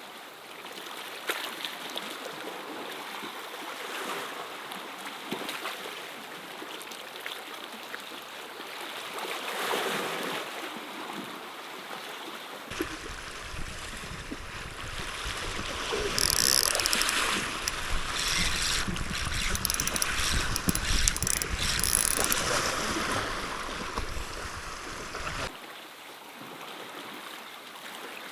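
Sea waves washing against a rocky shore, with wind on the microphone. The surf and the deep rumble swell up from a little under halfway through, are loudest in the middle, and drop back near the end.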